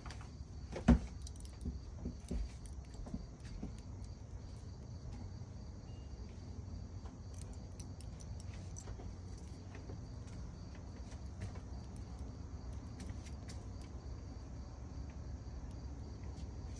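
Night insects, crickets among them, trilling steadily in a continuous high chorus. A sharp knock sounds about a second in, followed by a few softer knocks, likely from handling the camera.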